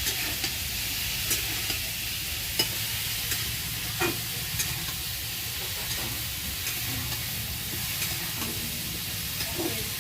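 Raw jackfruit pieces frying in hot oil in a kadai: a steady sizzle, with a spatula clicking and scraping against the pan every so often as they are stirred.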